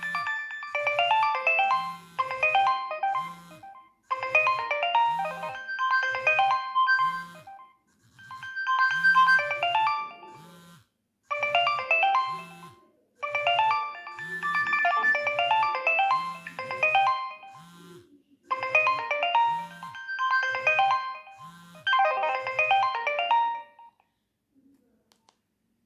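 Nokia 3120 ringtone playing: an electronic melody over a regular bass line, in short phrases with brief gaps between them, stopping about two seconds before the end.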